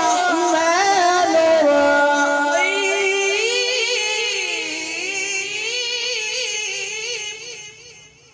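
A man reciting the Quran in a long, melodic, drawn-out phrase, his voice amplified through a microphone, with slow pitch turns and ornaments, fading out near the end of the phrase.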